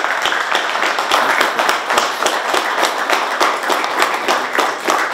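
Audience applauding: many hands clapping at once, a dense patter of claps.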